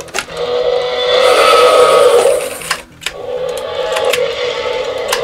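Mattel Epic Roar T-Rex toy playing its recorded roar through a small built-in speaker, heard twice. The first roar ends in clicks a little under three seconds in, and the second runs until near the end.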